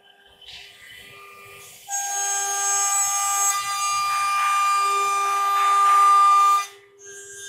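CNC router spindle cutting into a wood panel: a loud, steady high whine made of several fixed tones over a hiss of cutting noise. It starts about two seconds in and drops off suddenly near the end, leaving a quieter steady spindle tone.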